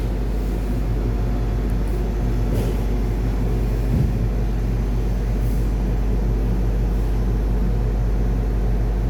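Tube ice machine running on its commissioning test: a steady low machine hum, with one short low thump about four seconds in.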